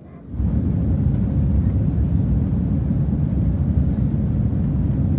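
Airbus A330-300 airliner noise: a loud, steady, deep rumble that starts abruptly about half a second in.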